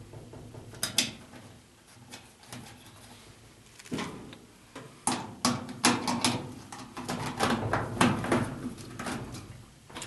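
Metal cover plate being fitted over a clothes dryer's terminal block and screwed down with a screwdriver: irregular clicks, taps and small metallic rattles against the sheet-metal back panel, busier from about four seconds in.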